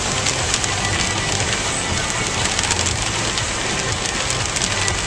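Heavy rain hitting a moving car's windshield and roof, heard from inside the cabin: a steady hiss with many separate drop clicks, over the low, steady rumble of tyres and engine on a wet highway.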